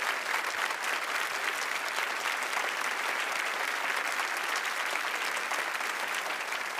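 Studio audience giving a standing ovation: steady, dense applause.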